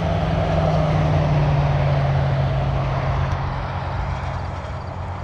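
Engine of a large vehicle running steadily with a low hum, which fades out about four and a half seconds in.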